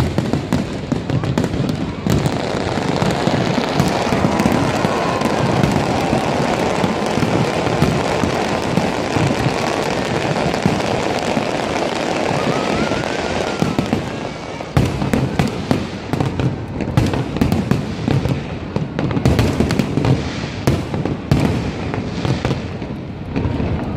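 Fireworks going off continuously: a dense crackle of bursts, then many separate sharp bangs in the second half.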